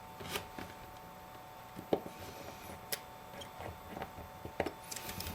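A few scattered small, sharp clicks and light taps: a precision screwdriver and tiny screws being worked against the metal shield plate on an iPhone 5 screen assembly.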